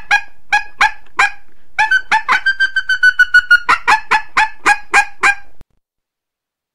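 Female coyote estrus chirps, the mating-season call of a female in heat: a rapid run of short, high yipping chirps, with one longer drawn-out note a little after two seconds in. The calling stops abruptly about five and a half seconds in.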